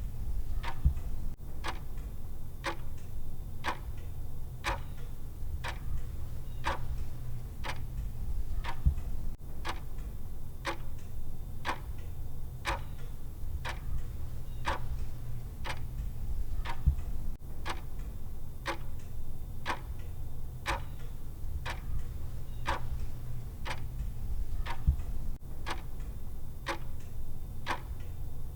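Clock ticking at a steady, even pace, the countdown timer's tick sound, over a steady low hum.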